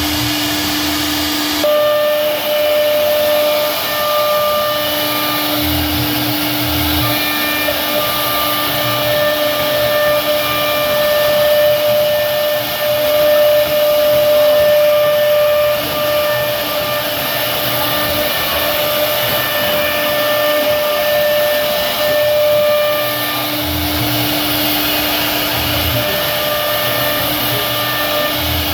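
CNC router spindle running steadily as it carves wood, a constant hissing whine with steady tones that drop in and out.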